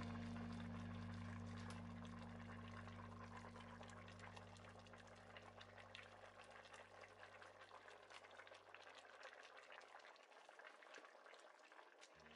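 A big pot of chicken-back and white-bean soup bubbling faintly on the stove, a steady patter of small pops and crackles. Background music with low held tones fades out over the first ten seconds.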